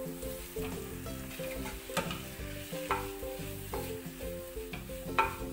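Beef pieces sizzling in a frying pan as a wooden spatula stirs and scrapes them, with a few sharper knocks of the spatula against the pan. The beef is being dry-fried until browned and crisp.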